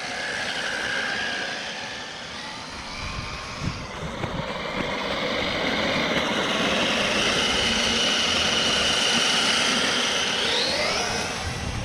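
Traxxas RC car motor whining as the car drives, its pitch rising and falling with the throttle. A long, steady high whine in the second half climbs sharply near the end.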